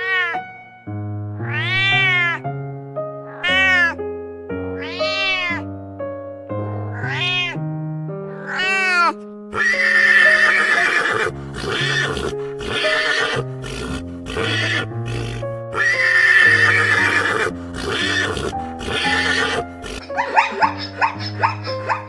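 Background music with a simple steady tune, with animal calls laid over it. About six short calls rise and fall in pitch in the first half, then longer, rougher calls follow, and short quick calls come near the end.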